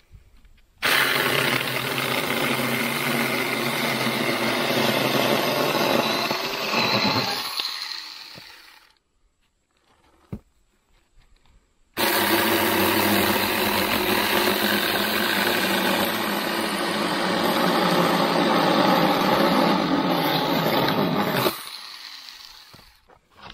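Avhrit 6-inch cordless electric mini chainsaw cutting through a log in two runs of about seven and nine seconds, with a few seconds' pause between. At the end of each run the motor's whine winds down as the trigger is let go.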